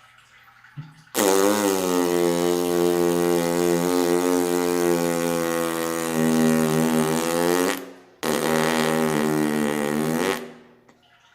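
Two long, loud farts: a steady low rasping buzz with a hiss over it, the first lasting about six and a half seconds, the second about two seconds after a brief break.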